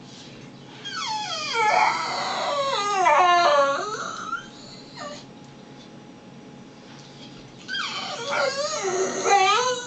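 Crated pit bull crying: two long bouts of high, wavering whining howls, each warbling and sliding down in pitch, the first starting about a second in and the second near the end.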